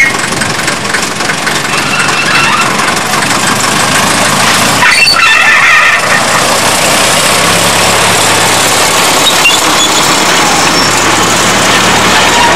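Small 600 mm narrow-gauge diesel locomotive running as it hauls a passenger train past, with the wagons rolling on the track; a brief high tone sounds about five seconds in.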